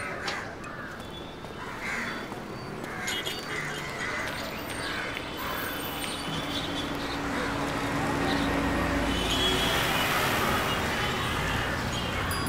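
Crows cawing repeatedly over city street noise, with a low traffic rumble that grows louder in the second half.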